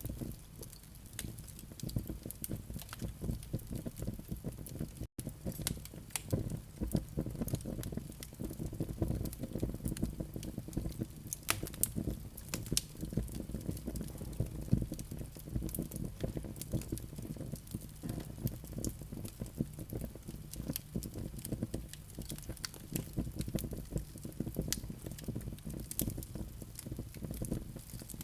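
Fireplace coals and flames crackling and popping in quick, irregular snaps over a low, steady rumble. The sound cuts out for a split second about five seconds in.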